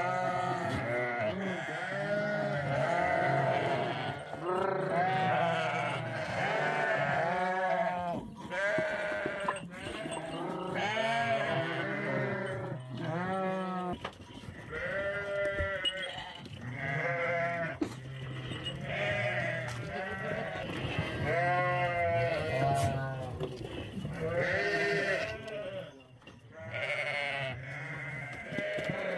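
A pen full of goats and young kids bleating, many overlapping calls following one another with hardly a pause.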